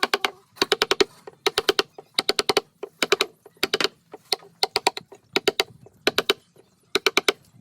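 Rapid tapping in short bursts, about nine runs of quick sharp taps with brief pauses between, typical of a carving chisel being driven with a mallet or hammer into wood.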